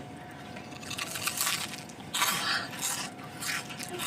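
Several short crunching and scraping noises of food being eaten and handled at the table, coming in bursts about a second apart.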